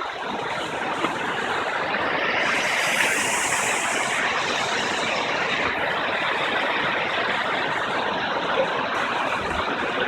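Steady rushing of a large waterfall, an even hiss with no pitch, and a brighter hiss that swells for about three seconds starting two seconds in.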